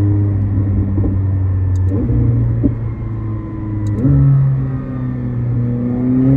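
McLaren 765LT's 4.0-litre twin-turbo V8 running under way, heard from inside the cabin with its drive mode set to the most aggressive setting. The engine note steps up twice, about two and four seconds in, then rises steadily near the end as revs climb.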